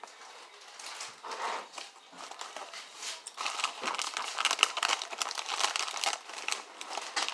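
A crinkly foil-lined chip bag being handled and pulled open. The crackling is light at first and grows loud and continuous from about three seconds in.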